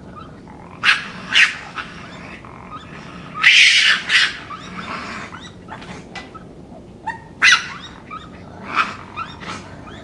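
Raccoon vocalizing: a series of short high squeals and chitters, with a longer, noisier cry about three and a half seconds in that is the loudest.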